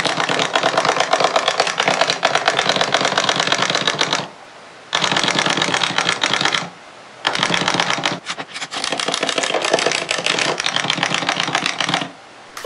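Clockwork mechanisms of wind-up toys running, a fast rattling tick that stops briefly three times.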